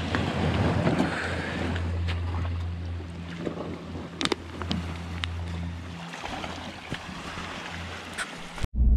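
Small waves washing over a rocky, seaweed-covered shore, with wind rumbling on the microphone. A few sharp knocks come as a small dinghy is hauled over the stones.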